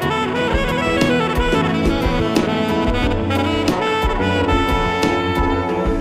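Background music: a jazzy tune led by saxophone and brass over a drum-kit beat.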